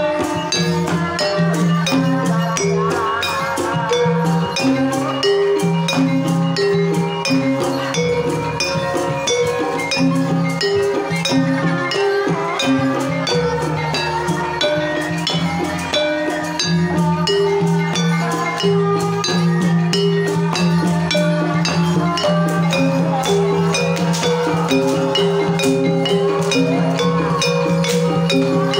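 Javanese Banyumasan gamelan playing a tayub piece: kendang drums keep a steady beat under sustained, repeating notes from keyed percussion instruments, with a sinden (female singer) singing over them.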